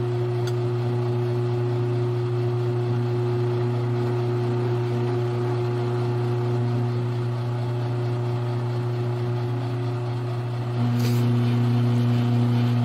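Grizzly G1007 mill-drill running steadily with a motor hum as its drill bit bores a small 1/8-inch cotter-pin hole sideways through a metal cap held in the vise. About eleven seconds in, the hum changes pitch and grows a little louder, with a brief hiss.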